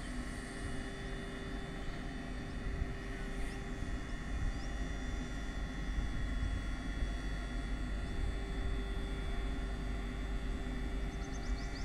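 WAG-12B twin-section electric locomotive standing at a signal, its cooling blowers and transformer running with a steady hum and several steady whining tones. A bird chirps quickly many times near the end.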